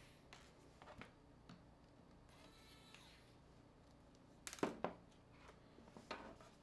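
Small sharp clicks and taps of a smartphone being taken apart by hand, plastic parts and a precision screwdriver knocking together, spaced out over a quiet room; the loudest is a quick double click about halfway through.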